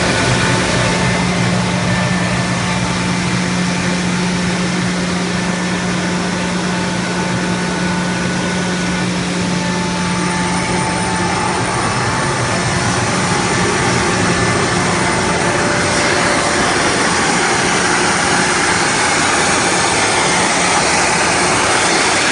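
A 50 hp Kaeser BS61 rotary screw air compressor from 2000 running with a loud, steady mechanical noise. A low hum is present until about halfway through, then fades while a brighter hiss grows.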